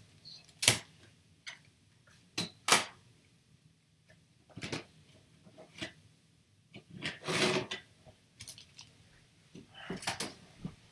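Handling noise close to the microphone: scattered sharp knocks and clatters, two loud ones close together about two and a half seconds in, and a longer rustle about seven seconds in, as a person moves about and handles things.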